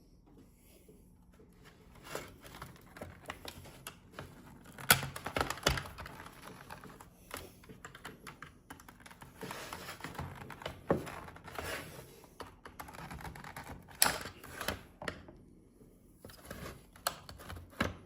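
Plastic housing and internal parts of a GE Simon XT security panel being handled and pulled apart by hand: irregular clicks, taps and knocks, with the loudest knocks about five seconds in and again near fourteen seconds.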